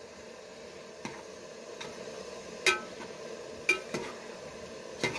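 Metal ladle stirring chicken and masala in a metal cooking pot, clinking and ringing against the pot about five times, the loudest about halfway through. A steady sizzle of the food cooking runs underneath.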